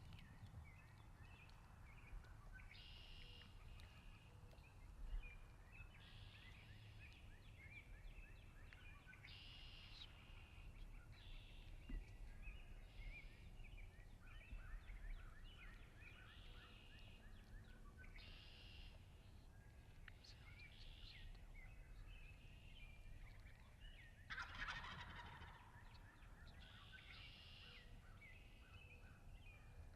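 Wild turkeys gobbling, faint and repeated, with other bird calls around them; the strongest gobble comes near the end.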